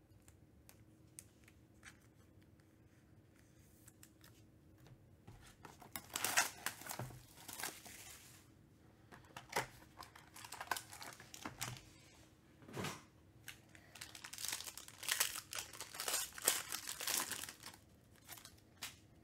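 Foil trading-card pack being handled and torn open, with its small cardboard box being opened. Faint clicks at first, then bursts of crinkling from about six seconds in that grow denser near the end.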